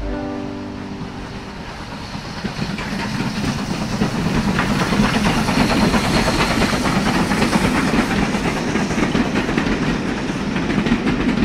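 Toy train running on plastic track: a dense, rapid clatter of its small wheels and motor, growing louder over the first few seconds and then holding steady.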